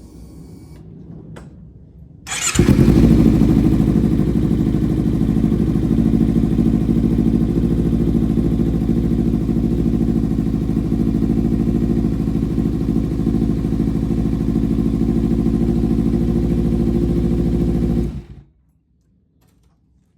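Kawasaki Ninja 300's parallel-twin engine cranked on the starter and catching about two seconds in, then idling steadily for some fifteen seconds, run to circulate freshly changed oil, before it is switched off and stops suddenly.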